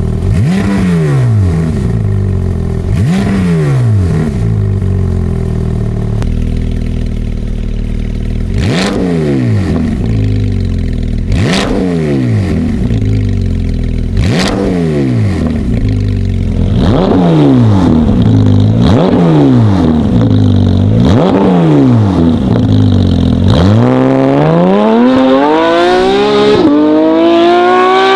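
Porsche 718 Cayman GT4 RS's naturally aspirated flat-six, breathing through a catless valvetronic exhaust with the valves open, blipped repeatedly: several free-revs a few seconds apart, then a quicker run of back-to-back blips. About 24 s in it becomes one long rising pull under acceleration, with a brief dip for an upshift near the end.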